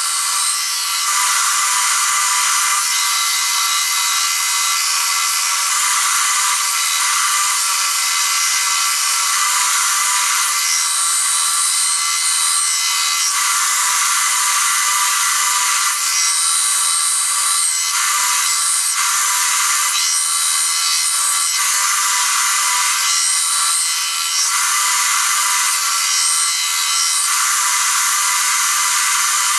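A bench belt grinder runs steadily while a steel blade cut from an old file is pressed against the belt in repeated passes. A high grinding hiss swells and fades with each pass over the steady whine of the machine.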